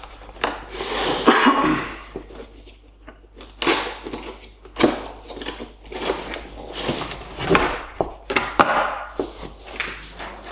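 Cardboard box being opened by hand: irregular scraping, rustling and knocking of cardboard as the lid is worked off, with a paper sheet rustling near the end.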